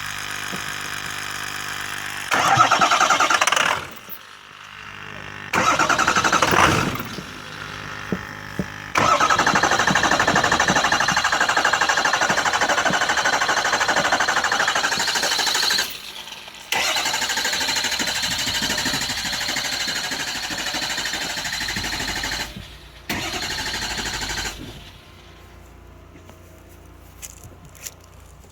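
Starter cranking the engine over again and again in about five bursts, the longest lasting about seven seconds, without it catching and running. This is a hard start, which the owner puts down to fuel draining back to the tank so the carburetor bowl runs dry.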